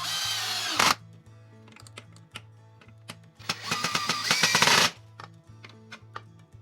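Power drill running in two short bursts, winding up and then down, over background music with a steady bass line.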